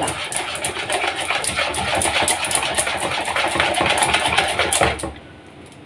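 Wire whisk beating thin besan batter in a bowl: a fast, steady run of clicks and scrapes against the bowl that stops about five seconds in.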